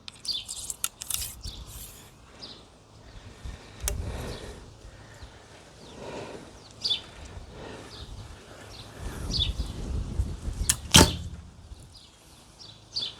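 Recurve bow (Nik'a N3 limbs, 30 lb draw) shot through a chronograph: a sharp snap of the released string and arrow about eleven seconds in, the loudest sound. Before it come light clicks and a low rumble of wind.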